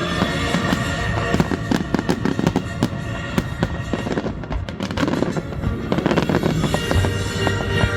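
Fireworks going off in a dense run of crackles and pops, over music playing at the same time.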